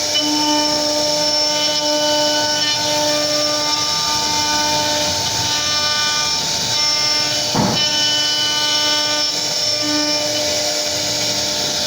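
CNC router spindle running at speed while its bit carves wood: a steady whine of several tones over the noise of the cut, with a brief change in pitch about two thirds of the way through.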